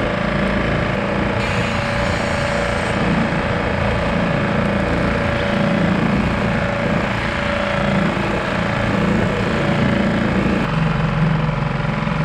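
Small outboard motor running steadily, pushing the skiff along at trolling speed, with water rushing along the hull. The engine note shifts slightly near the end.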